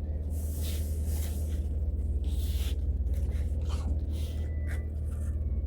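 A few brief rustles and scrapes of things being handled, over a steady low hum.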